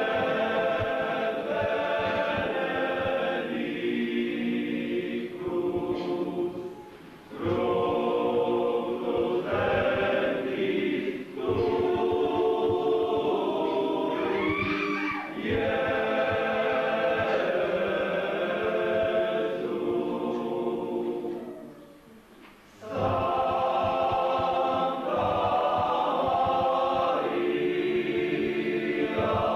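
A church hymn sung by many voices in phrases, with short breaks between lines. It fits the offertory hymn sung while the gifts are prepared at Mass.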